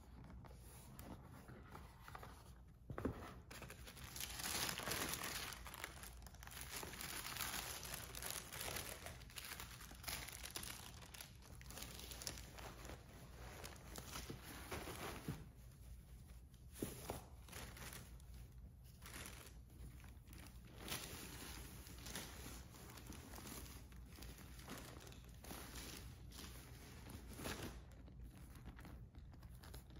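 Tissue paper crinkling and rustling, together with the cloth of a cotton dust bag, as a packed designer handbag is unwrapped from its box. The rustling comes in uneven bursts, loudest about four seconds in, with a few light knocks from the cardboard box.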